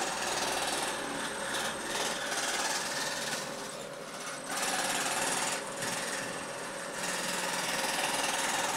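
A stationary jigsaw (scroll saw) built into a workbench running, its reciprocating blade cutting a fretwork pattern into a wooden board. The sawing is continuous, dipping briefly in loudness a couple of times as the board is turned and fed.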